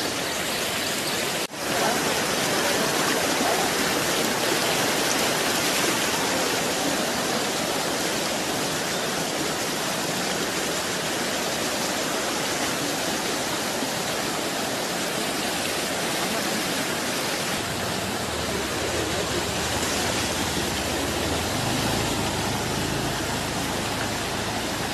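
Floodwater rushing down a flooded street in a steady, loud rush of churning water, the street running like a river after a night of heavy rain. The sound breaks off for an instant about a second and a half in, and a low rumble joins in for the last several seconds.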